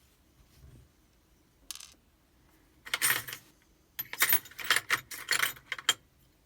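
Small metal pins and parts of a pin-tumbler challenge lock clinking and rattling as the lock is gutted. There is a brief clink about two seconds in, then a cluster of rattling around three seconds in, and a longer run of clinks from about four to six seconds in.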